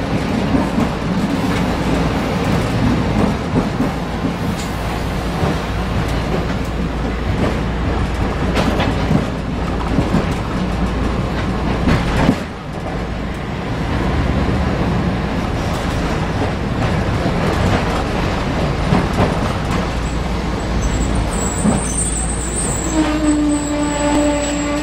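Manyosen tram running along street track, heard from aboard: a steady rumble of wheels and running gear with occasional sharp clacks over the rails. A steady pitched tone comes in near the end.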